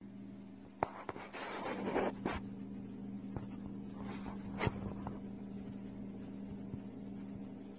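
Loose sand rustling and scraping as a desert viper shimmies its body down into it, loudest between about one and two and a half seconds in, with a couple of sharp clicks. A steady low hum runs underneath.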